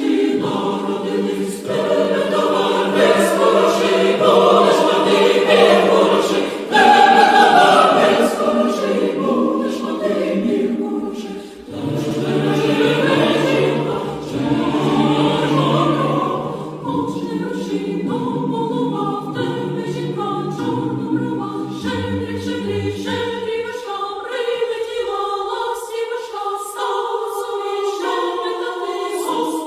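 Choir singing a song in sustained harmony; the voices thin to a lighter, sparser texture in the last third.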